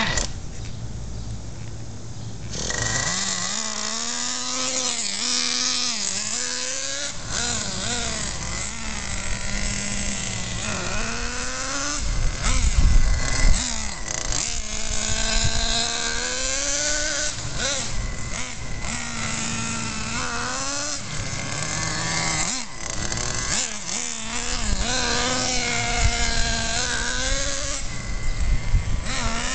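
Traxxas Jato 3.3 nitro RC car's small two-stroke glow engine running on 10% nitro fuel during break-in, its high-pitched whine rising and falling again and again as the throttle is worked. A loud low rumble comes in about twelve seconds in.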